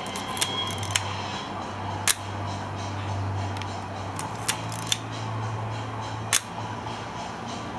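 Leica M4-P rangefinder being operated by hand: its cloth focal-plane shutter firing and its mechanism being worked, heard as six sharp mechanical clicks. The two loudest come about two and about six seconds in.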